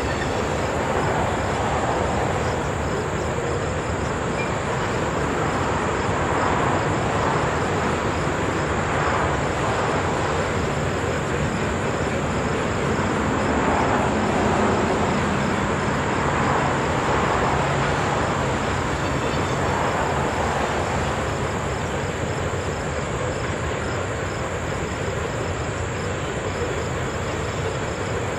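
Loaded coal hopper cars of a long freight train rolling steadily over a stone-arch bridge, heard at a distance as a continuous rumble of wheels on rail.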